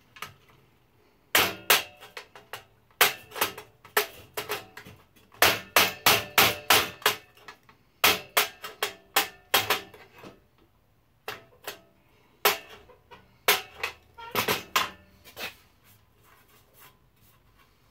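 Hammer blows on a steel wood chisel, chipping material off a workpiece. Sharp taps come in irregular runs of several quick strikes, starting about a second in and stopping shortly before the end.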